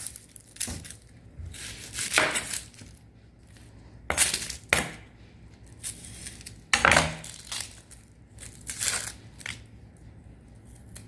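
Kitchen handling noises: a series of short clinks and rustles, spaced a second or two apart.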